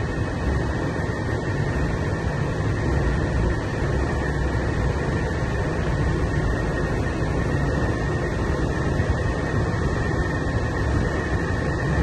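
Trane 8.5-ton commercial package air-conditioning unit running fully loaded, with both compressor stages, the condenser fan and the blower on. It makes a steady mechanical hum and rush of fan noise with a thin, steady high tone.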